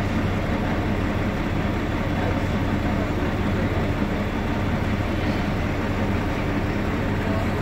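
Ikarus 280 articulated bus's diesel engine running, a steady low drone with constant noise and no change in pitch.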